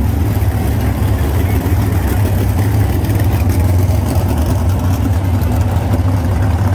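A field of 305 winged sprint cars' small-block V8 engines running together at a steady, moderate throttle, a continuous low drone with no big revving swings.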